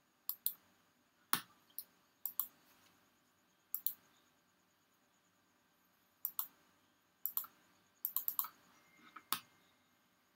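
Computer mouse clicking: sharp clicks, many in quick pairs like double-clicks, in scattered groups with pauses between, including a quick run of four about eight seconds in.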